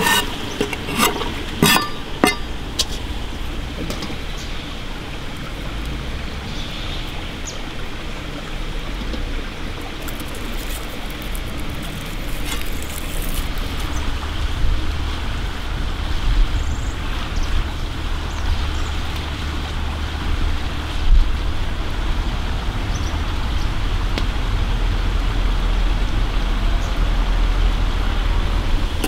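A Serbian chef's knife chops green bell pepper on a wooden board, four or five quick knocks in the first couple of seconds. Then the steady rushing of a forest stream with a deep low rumble, growing a little louder near the end.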